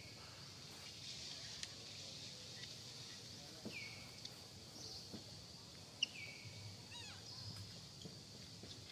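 Faint forest ambience: a steady high insect drone, with three or four short chirps that fall in pitch and a single sharp click about six seconds in.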